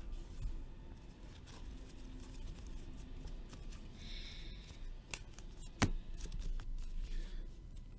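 Sports trading cards handled in the hands: faint sliding and rustling of cards through the fingers, with a few light clicks and taps, the sharpest a little before six seconds in.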